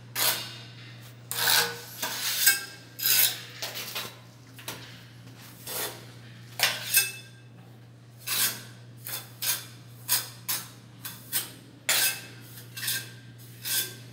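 Steel trowel scraping mortar across a ceramic tile in repeated short, sharp strokes, about one a second, over a steady low hum.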